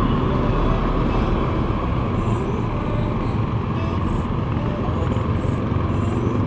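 A Yamaha Mio scooter's engine running while riding, mixed with steady wind rush on a helmet-mounted microphone.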